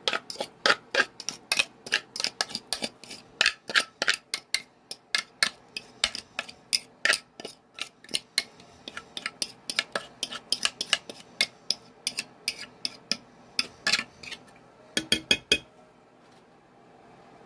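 A utensil clinking and scraping against a mixing bowl as batter is worked out of it: quick, irregular clicks, several a second, that stop near the end.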